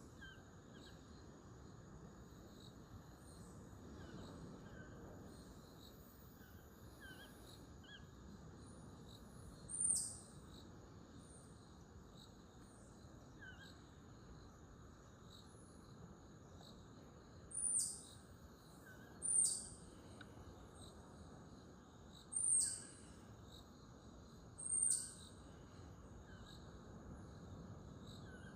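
Tropical rainforest ambience: a steady high insect drone with faint chirps, and five short, high, downward-sliding bird whistles. The first comes about a third of the way in and the others follow in a loose group later on.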